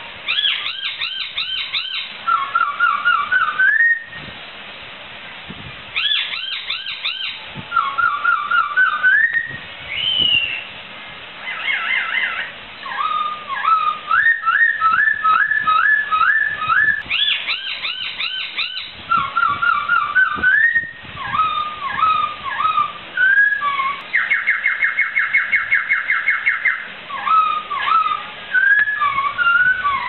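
Poksai (laughingthrush) in full song: loud, varied whistled phrases, with quick runs of rising notes repeated several times, hooked glides, and at one point a fast even trill about three seconds long.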